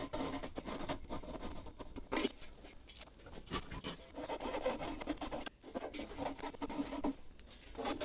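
A small hand saw scraping against wood inside the steel body of a vintage Dobro resonator guitar, in irregular short strokes with a longer stretch of steady scraping in the middle. It is an attempt to cut the wooden pieces that hold the neck in place.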